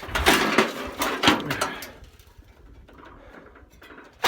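Blast-damaged sheet-metal grill being handled: a cluster of loud scraping and clanking in the first two seconds, then quieter rattling. A sudden loud knock comes at the very end.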